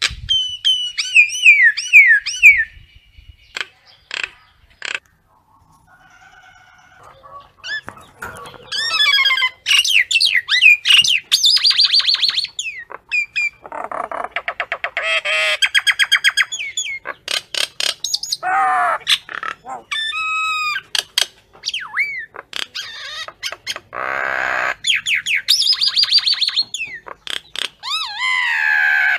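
Common myna calling: a few falling whistled notes, a lull of a few seconds, then a long, varied run of gliding whistles, harsh rasping chatter and squawks.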